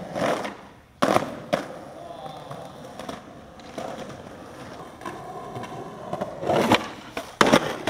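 Skateboard ollie over rocks on concrete: the board lands with a sharp clack about a second in, followed by the wheels rolling on the pavement. Near the end come more sharp board clacks.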